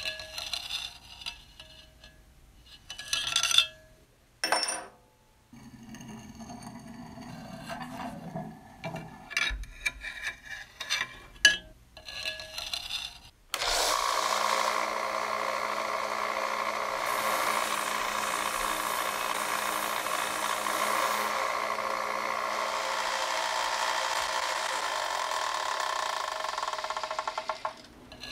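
Metal clinks, knocks and scrapes of a steel chisel shifting about on a cast-iron machine table. About halfway through, a narrow vertical belt sander starts suddenly and runs steadily with a constant whine, stopping shortly before the end.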